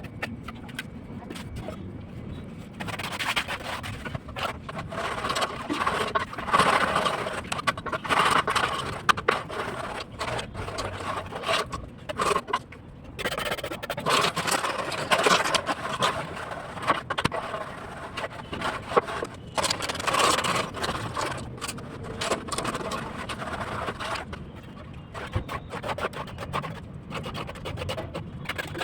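Irregular scraping of hand tools through concrete or mortar on a building slab, coming in spells of a few seconds with short pauses.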